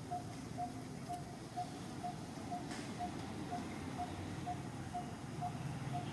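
A short, mid-pitched tone repeating evenly about twice a second over a low background rumble.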